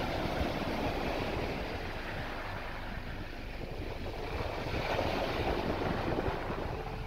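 Rough surf breaking and washing up the shore in a wind-driven sea, with strong wind buffeting the microphone as a low rumble. The wash swells near the start and again about five seconds in.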